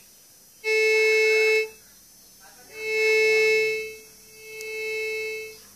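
MD-5008 metal detector sounding its steady single-pitched detection tone three times. The first lasts about a second and starts and stops abruptly; the next two swell up and fade, the last quieter. The small search coil under test is picking up a wedding ring held near it.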